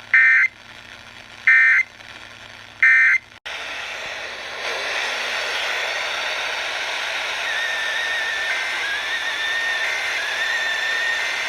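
Three short, shrill warbling digital data bursts about a second and a half apart: EAS SAME end-of-message codes closing the alert. Then an abrupt switch to steady radio static hiss, with a faint wavering whistle in it from about halfway through.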